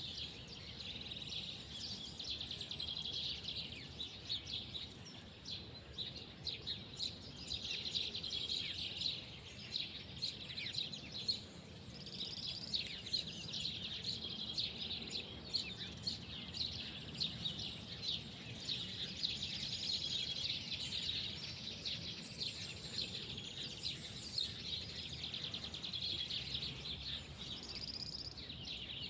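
Many small birds chirping and trilling together, a continuous high twittering, over a faint steady low rumble of distant background noise.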